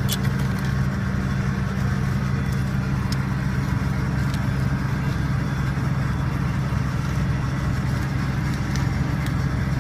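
Diesel engine of heavy logging machinery running steadily at a constant speed, with a few light clicks.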